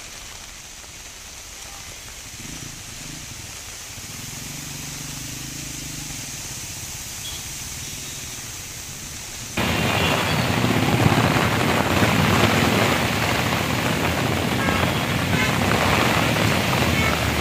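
Heavy rain falling on a flooded road with traffic driving through the water: a steady hiss of rain under the low hum of vehicle engines. About ten seconds in it cuts abruptly to a much louder, denser rain hiss.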